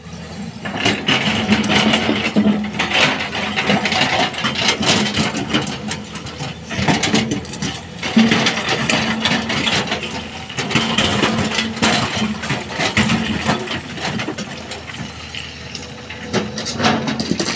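Volvo excavator's diesel engine working under hydraulic load, the engine note swelling and easing in cycles as the machine digs and swings, with rocks and dirt clattering as they drop into a dump truck's steel tipper body.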